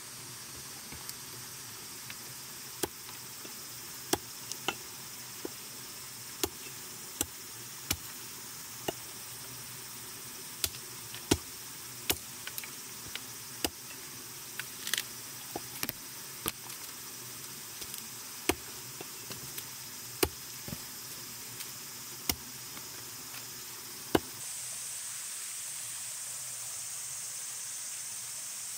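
Hatchet chopping and splitting kindling on a wooden stump chopping block: sharp single chops every second or two over a steady high hiss. Near the end the chopping stops and a steady rush of a small waterfall takes over.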